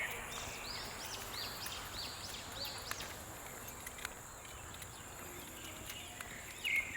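A bird calling: a run of about six quick arched whistled notes, roughly two a second, over the steady high drone of insects in the forest.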